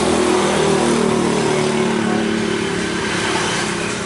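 An engine running steadily, its pitch drifting slightly, slowly getting quieter.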